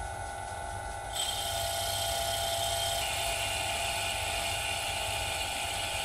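Vintage metal lathe running, its tool bit taking a facing cut across the spinning workpiece and throwing chips: a steady motor hum and whine, with a cutting hiss that comes in about a second in and grows about three seconds in.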